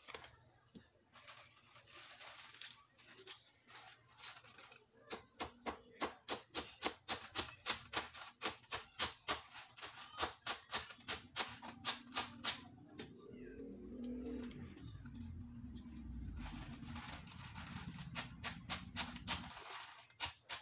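Kitchen knife chopping mustard greens on a wooden cutting board: rapid, even blade strikes at about four a second, in two runs with a pause between them. A low droning sound runs underneath for several seconds in the second half.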